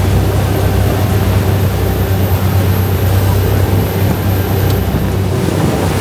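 Speedboat engine running at speed, a steady low drone, mixed with the rush of the churning wake and wind.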